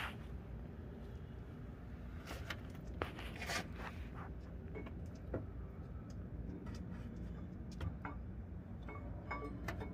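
Camshaft being slid by hand into the cam bearings of a Ford 5.0 V8 block: scattered light metallic clicks and knocks as the lobes and journals pass through the bores, over a steady low rumble.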